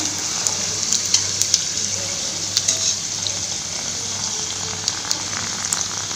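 Small puris deep-frying and puffing up in hot oil: a steady sizzle with frequent small crackles and pops.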